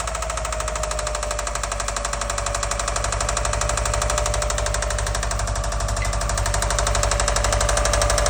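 Subaru EJ205 turbocharged flat-four in a 2004 WRX running with a rapid, steady knocking chatter. The owner has ruled out the timing belt tensioner hitting the block as the cause; he first took the chatter for an exhaust manifold leak.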